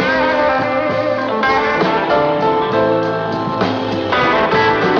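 Blues music: an instrumental guitar passage between sung lines, with bending, sustained lead guitar notes over a band.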